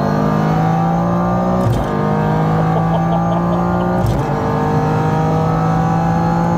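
Toyota GR Yaris's turbocharged three-cylinder engine pulling hard under acceleration, its pitch climbing steadily, then dropping suddenly with a sharp crack at two quick upshifts of its sequential gearbox, about two seconds and four seconds in.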